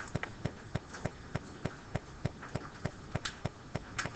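Faint, regular ticking, about three evenly spaced ticks a second.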